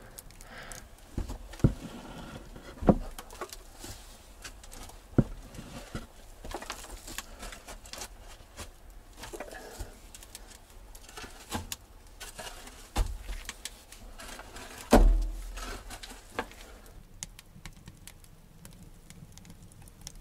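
A shovel digging in the dugout's earthen floor: irregular scrapes and knocks of the blade in soil, the heaviest thud about fifteen seconds in.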